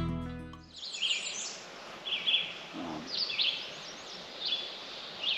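The last guitar notes ring out and fade within the first second, then birds chirp in short repeated calls about once a second over a faint steady hiss.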